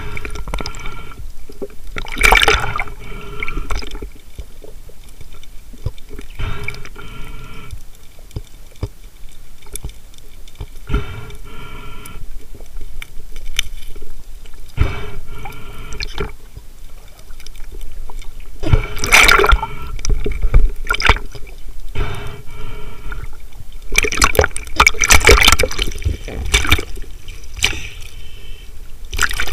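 Water sloshing and bubbling heard from under the surface, with several louder splashing surges: one about two seconds in, one near twenty seconds and a longer one around twenty-five seconds.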